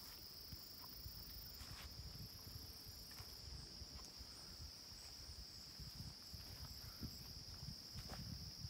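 Faint, steady high-pitched drone of insects singing in late-summer woods, unbroken throughout, over a low uneven rumble of wind or handling on the microphone.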